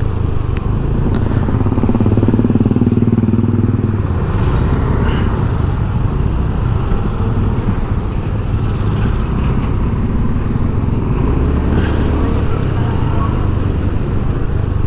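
Motor vehicle engine running close by with a steady low rumble, swelling briefly between about two and four seconds in.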